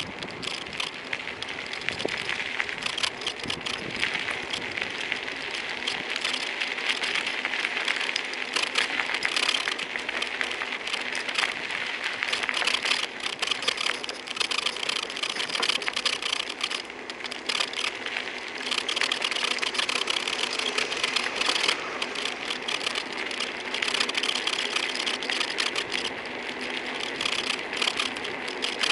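Continuous rapid creaking and rattling from the phone holder on a moving Kugoo V1 Plus, over road noise.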